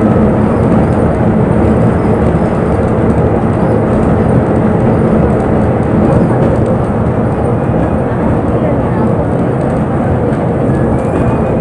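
Steady engine and road rumble of a moving bus, heard from inside the passenger cabin.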